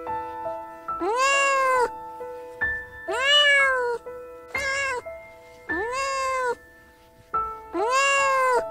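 Domestic cat meowing five times, each meow rising then falling in pitch, over background music with held notes.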